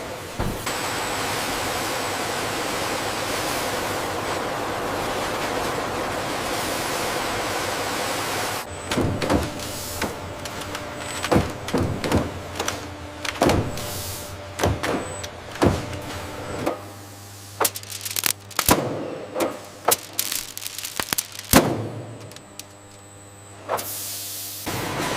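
Machinery: a steady rushing hiss for about eight seconds, then a run of irregular clanks and knocks over a low hum.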